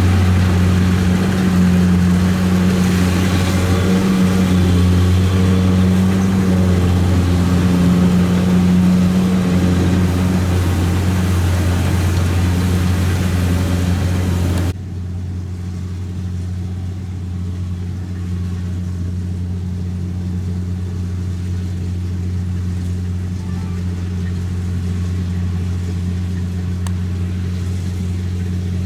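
Kubota DC 70 combine harvester running under load while cutting rice: a steady low engine hum with the clatter and rush of the cutting and threshing machinery over it. About fifteen seconds in, the sound abruptly turns duller and quieter as the higher rattle drops away, while the engine hum carries on.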